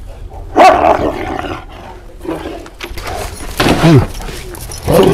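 Large Kangal–Malaklı cross shepherd dogs barking aggressively at each other, in a few loud, deep barks a second or more apart, one falling in pitch about four seconds in.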